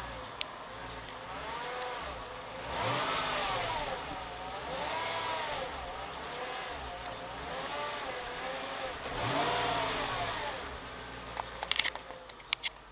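Supercharged 5.4-litre V8 of a Mercedes-Benz E55 AMG, heard close up, revved lightly four times from idle. A whine rises and falls in pitch with each blip; the owner likens it to power steering noise and finds it disturbing. A few sharp clicks come near the end.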